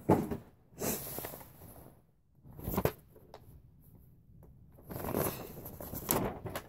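Packaging wrap rustling and crinkling as toy blaster parts are unwrapped and handled, in a few separate bursts.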